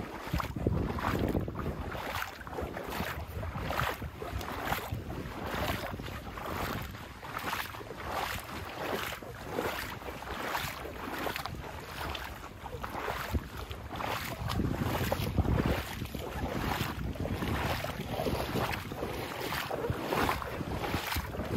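Walking footsteps splashing through floodwater at about two steps a second, with wind noise on the microphone.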